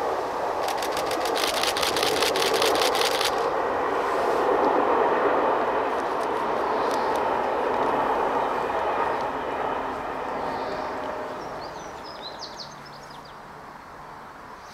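ZSSK class 751 'Bardotka' diesel locomotive, a six-cylinder diesel, running as it hauls its train, with a fast rattle of clicks in the first few seconds. The sound fades away from about nine seconds in.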